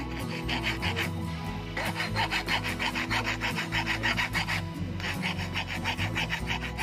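Rapid rhythmic rasping strokes, about four or five a second, in three runs with short pauses between, over background music.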